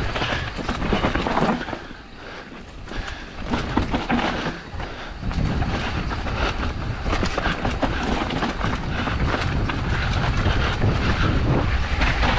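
Mountain bike running down a rough dirt trail: tyres crunching over dirt and loose stones, the bike rattling over the bumps, and wind rumbling on the microphone. It eases off briefly about two seconds in, then runs on steadily.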